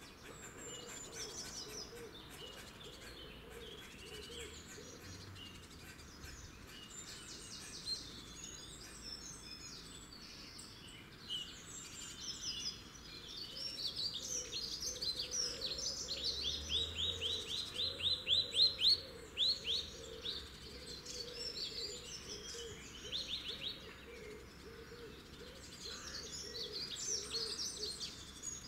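Wild birds singing and calling, several overlapping, over a steady outdoor background hiss. In the middle comes a loud, fast run of sharp repeated notes, about six a second for a few seconds.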